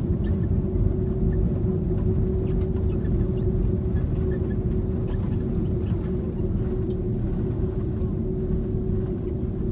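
Steady cabin noise inside an Airbus A330-300 airliner: a low engine and airflow rumble with a constant hum.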